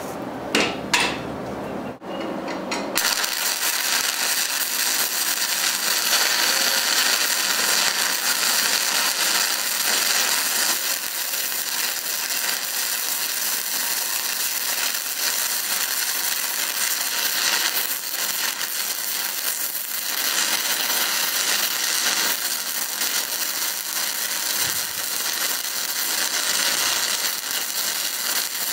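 A few short taps, then from about three seconds in a stick-welding (SMAW) arc burns with a steady, dense crackle.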